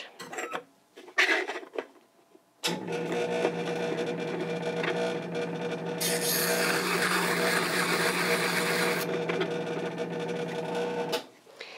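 An electric diamond hone with a 1200-grit disk switches on about three seconds in and runs with a steady hum, then switches off just before the end. From about six to nine seconds a hiss of grinding rises over the hum as a carbide graver's face is held to the spinning disk and polished. Before the motor starts there are a few light clicks.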